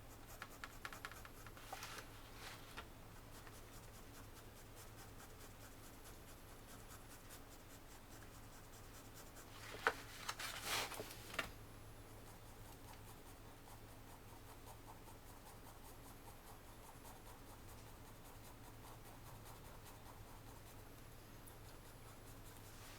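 Graphite pencil strokes scratching faintly on paper, with a louder short flurry of strokes and a sharp tap about ten seconds in, over a low steady hum.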